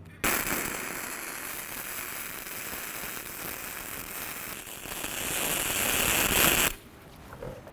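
Flux-core MIG welding arc from an H&S Autoshot HSG130 wire-feed welder running a bead on steel plate. It strikes just after the start, grows slightly louder toward the end, and cuts off about a second before the end.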